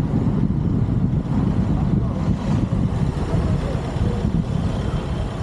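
Wind buffeting the microphone of a moving vehicle, a steady low rumble with the vehicle's running engine under it.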